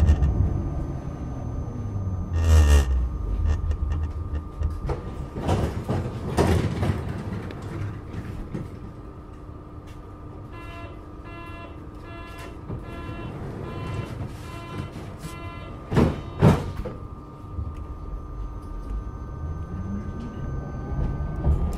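Adtranz GT6N low-floor tram at a stop. Its traction motor whine falls away as it brakes, and a run of door warning beeps sounds. Two loud thumps follow as the doors shut, then the motor whine rises again near the end as the tram pulls away.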